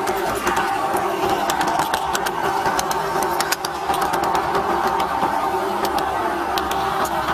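G-scale model train's electric motor and gearing running with a steady hum, picked up close by a camera riding on the train, with irregular sharp clicks from the wheels passing over the track.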